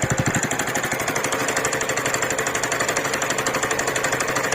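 TVS Ntorq scooter's single-cylinder engine idling with a rapid, even ticking ('kat kat'), its exhaust muffled by a hand held over the silencer. The tick comes from the starter side, by the rotator fan, and the service centre put it down to a loose one-way starter clutch.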